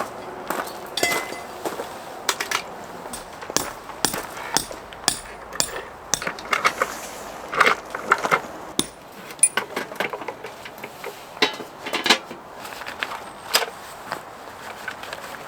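A run of irregular sharp knocks, clinks and clatter of hard objects being handled and set down, several a second at the busiest points.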